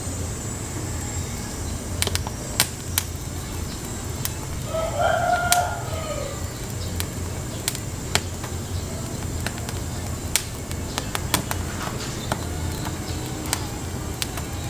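A chicken calls once, briefly, about five seconds in, over a steady low rumble with scattered sharp clicks.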